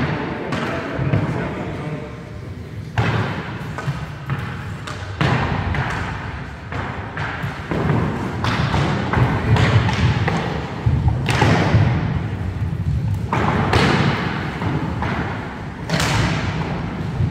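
Inline skate wheels rolling on a wooden sports-hall floor during roller hockey, under repeated sharp knocks and thuds of sticks and ball striking the floor and each other, echoing in a large hall. Players' voices call out now and then.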